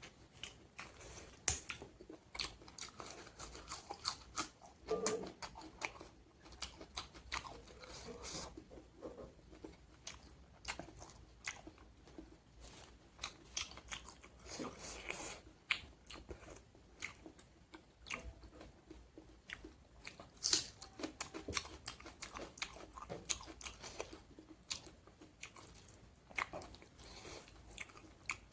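A person chewing and crunching pork curry with raw onion and salad close to the microphone: a dense, irregular run of sharp crunches and wet mouth clicks.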